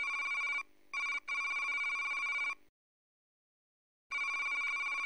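A warbling electronic ring like a telephone ringer, one steady pitch with a fast trill. It breaks off briefly about a second in, stops at about two and a half seconds, and starts again about four seconds in.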